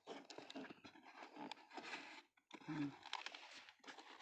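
Cardboard carton being handled and opened by hand: flaps rustling and scraping, with small crackles of packing tape. A short low-pitched sound comes a little past the middle.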